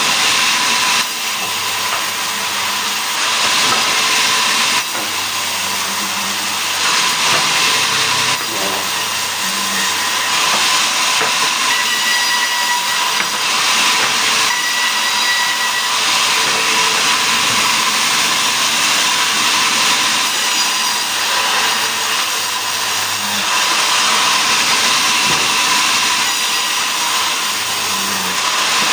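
Sawmill saw cutting mahogany timber into boards: a steady, loud hissing cut with a faint whine, its strength shifting every few seconds as the cut goes on.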